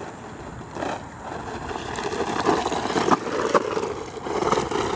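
Hosim electric RC truck driving fast in high gear over rough ground: motor and drivetrain whine with tyres scrabbling, growing louder through the middle, and several sharp knocks as it bounces.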